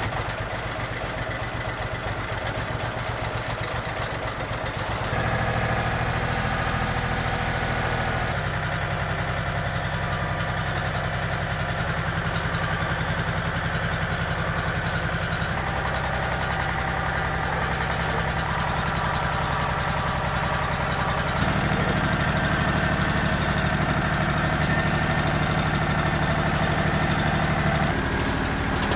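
Small diesel tractor engine running steadily, its speed stepping up and down several times.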